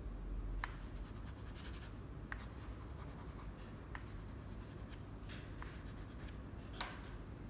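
Soft pastel stick scratching against paper in a few short, scattered strokes, over a steady low hum.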